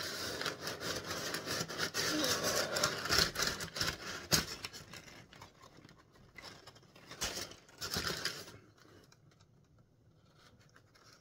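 Brown kraft packing paper crinkling and rustling as it is pulled from a cardboard box, with a few sharper crackles. It dies down over the last few seconds.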